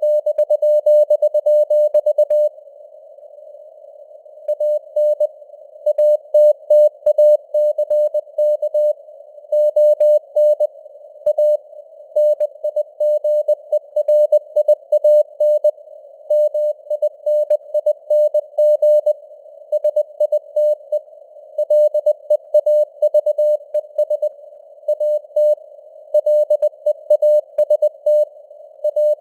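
Morse code sent at 20 words per minute: a single mid-pitched tone keyed on and off in dots and dashes over a narrow band of simulated radio hiss, the signal strength fading up and down as on a real shortwave band. The keying pauses for about two seconds, a few seconds in, then resumes.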